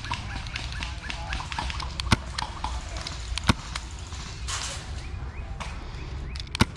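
Sharp single cracks of airsoft play, three loud ones spaced about a second and a half to three seconds apart, with fainter ticks and snaps between, over a steady low outdoor rumble.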